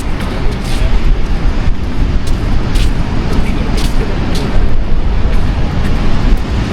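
Wind buffeting the microphone: a loud, gusting low rumble, with a few faint ticks.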